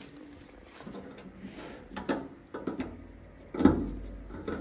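Small metallic clicks, knocks and scrapes from hands working a bolt and shifting a sheet-metal boiler cover into alignment, with one louder knock about three and a half seconds in.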